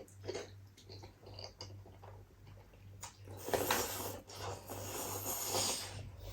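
Close-up eating noises: short mouth smacks and chewing sounds, then a louder, longer noisy stretch of eating sound a little past halfway.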